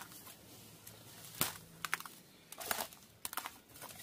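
Footsteps crunching over dry weed stalks and building debris: faint, irregular crackling clicks in small clusters.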